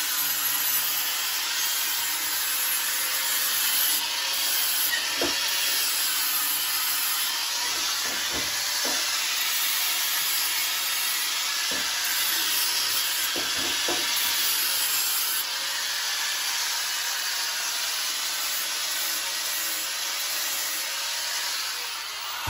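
Electric angle grinder running steadily, its disc grinding a small steel part with an even, high hiss, with a few faint knocks of the part being shifted against the bench midway through.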